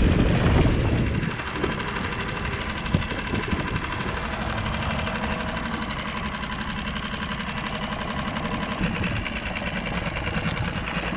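Small outboard motor on a solo skiff, running under way with a low rush at first, then eased down about a second in to a steady idle.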